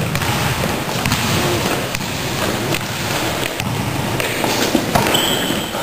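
Steady noise of a sports hall during a basketball game, with a few faint knocks from the ball and feet on the wooden court.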